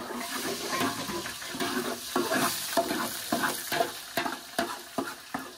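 Onions sizzling in hot oil in a large aluminium pot, stirred with a metal slotted spoon that scrapes and knocks against the pot repeatedly.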